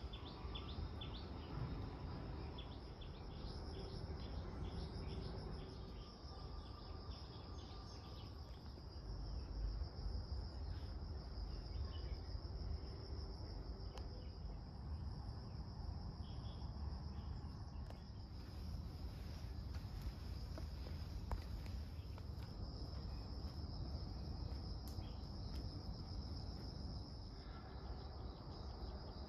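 Insects chirring steadily in the surrounding vegetation: one continuous high-pitched band, over a low rumble.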